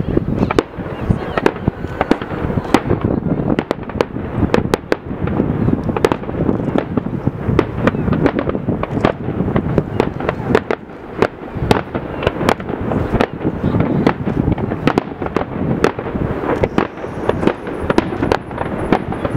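Aerial fireworks display: shells bursting in quick succession, a dense, continuous run of sharp bangs and crackles.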